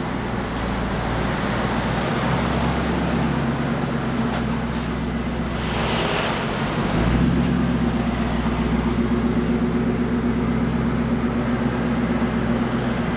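A 1999 Ford F-150 SVT Lightning's supercharged 5.4-litre V8 is running as the truck drives slowly away. Its note steps up and gets a little louder about halfway through.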